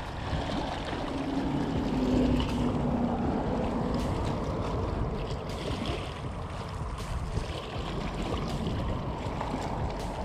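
Small waves lapping and splashing against shoreline rocks, with wind buffeting the microphone.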